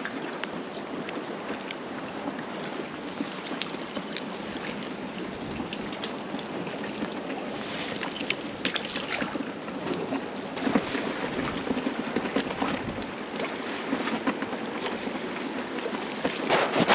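Water lapping and sloshing against a dock: a steady rush with scattered small clicks and splashes, busier from about halfway through and near the end.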